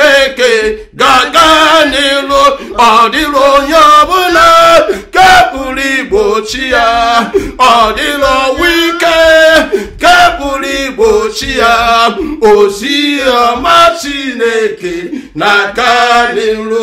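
A man leading a repetitive worship chant, with a woman singing along.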